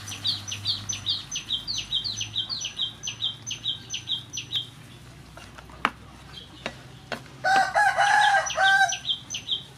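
A bird chirps rapidly, about three short, high, falling chirps a second, stopping a little under five seconds in and starting again near the end. A rooster crows loudly about seven and a half seconds in, and there is a single sharp knock about six seconds in.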